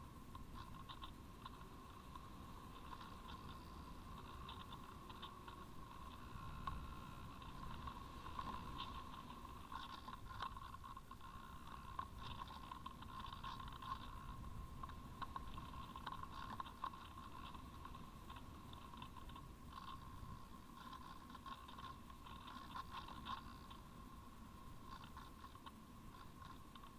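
Faint airflow rumble and crackle from a Parkzone Radian Pro electric model glider in flight, heard through its onboard camera, with a steady thin whine underneath. The sound swells slightly in the middle and eases near the end.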